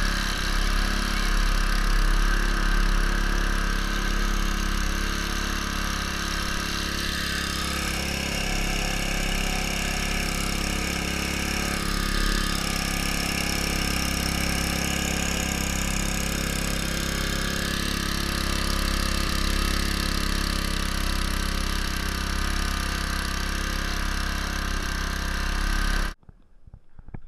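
Small single-cylinder Briggs & Stratton lawn-mower-type engine running steadily, driving the homemade kayak along with water spraying and splashing around the hull. The sound cuts off abruptly near the end.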